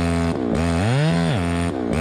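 Two-stroke chainsaw running at high revs, its pitch dipping sharply and recovering twice, as the engine drags down under load.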